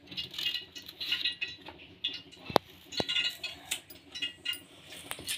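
Kitchen knife shaving the green skin off a raw banana: a run of short scratchy strokes, with a few sharp clicks of the blade.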